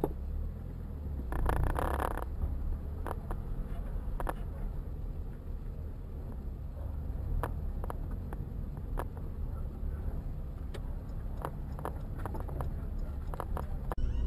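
Steady low road and engine rumble of a moving car, with scattered light clicks and knocks and a brief rustling burst about a second and a half in.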